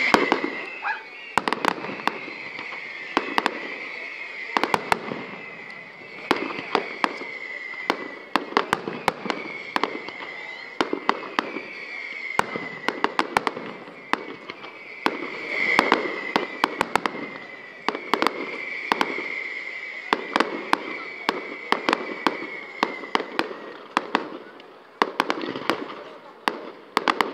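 Fireworks display: a continuous, irregular volley of sharp bangs and crackles from shells and ground pieces, over a high whistling tone that keeps recurring for most of the stretch.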